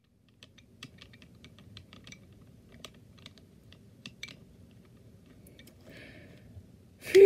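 Soft, irregular computer-keyboard typing clicks, a few per second, over a faint low hum; a voice breaks in loudly at the very end.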